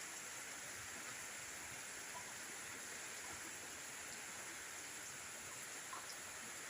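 Steady rain falling: an even hiss, with a faint drop or two landing.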